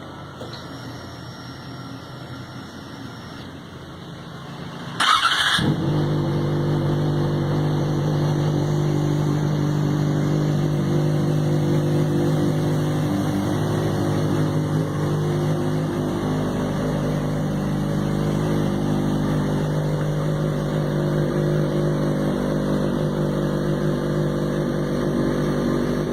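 Yamaha XJ6 motorcycle's inline four-cylinder engine starts up about five seconds in with a short burst of noise, then idles steadily.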